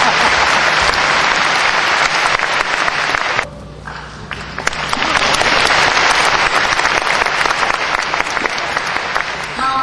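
Audience applauding. The applause drops away suddenly for about a second a third of the way through, then swells back up.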